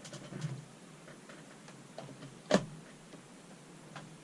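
A few faint clicks and one sharp click about two and a half seconds in, from the plastic power strip being handled.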